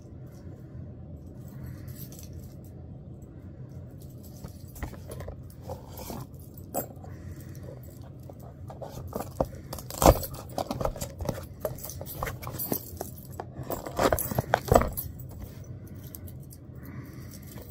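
A cardboard shipping box being handled and opened by hand: scattered scrapes, taps and rustles of the cardboard, loudest about ten seconds in and again about fourteen seconds in.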